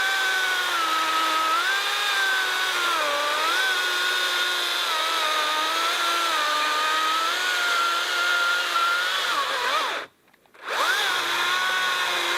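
Makita XCU04 36V cordless electric chainsaw cutting through a pine log, its motor whine sagging in pitch under load and recovering. About ten seconds in the motor stops, then spins back up with a quick rising whine. The saw is near the end of its battery charge and 'getting tired'.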